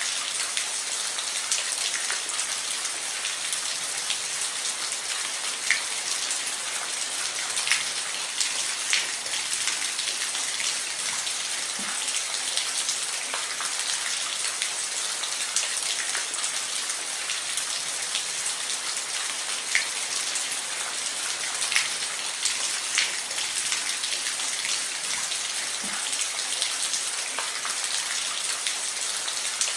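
Steady rain falling on a roof: a constant hiss with individual drops pattering sharply here and there.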